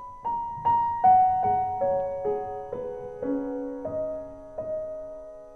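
Solo upright piano playing a slow falling line of about ten single notes, each ringing on under the next, the last one held and fading out.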